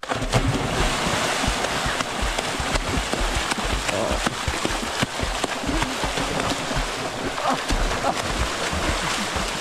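Swimming-pool water splashing and sloshing close to the microphone: a steady rush with irregular low thumps.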